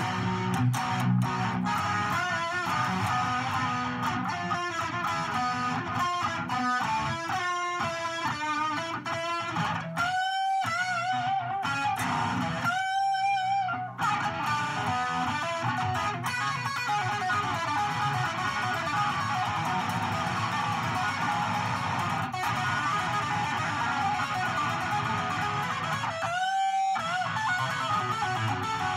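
Electric guitar played solo: picked single-note runs and riffs, with a few long held notes shaken with vibrato, one about ten seconds in, another just after, and one near the end.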